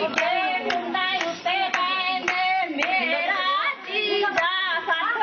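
Women singing Punjabi boliyan, with rhythmic hand claps about twice a second keeping time.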